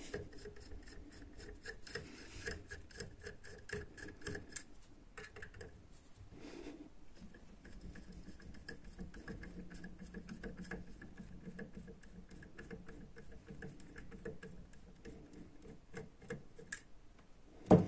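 A screwdriver turning small slotted screws out of an air pistol's metal frame: faint, quick ticking and clicking of the blade in the screw slots, with one sharper click near the end.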